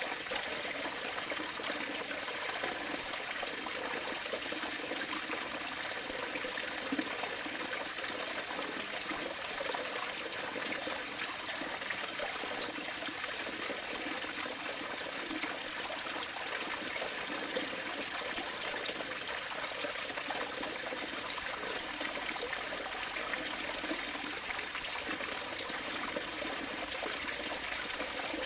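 Steady sound of running water, a stream or trickle flowing without a break.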